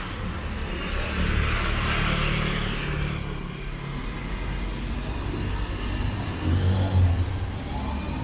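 Car traffic close by: a low engine hum throughout, a car passing about two seconds in, and an engine speeding up with a rising pitch near the end.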